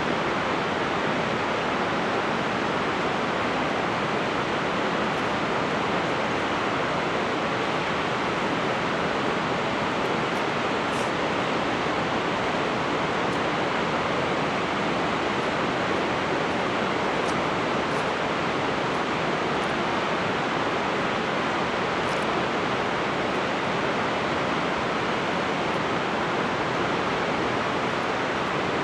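Shōmyō Falls, a waterfall with a 350-metre drop, pouring down: a steady, unbroken rush of falling water.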